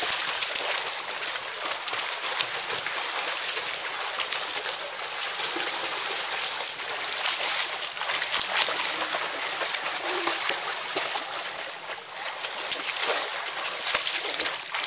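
Children swimming freestyle in a pool: steady splashing of arm strokes and kicking feet, with many small slaps of hands and feet on the water.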